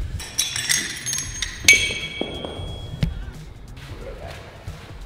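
Sharp metal clinks from hardware against the steel frame of a Titan T-bar row machine being assembled, the loudest about a second and a half in with a short ring, and a single knock about three seconds in, over background music.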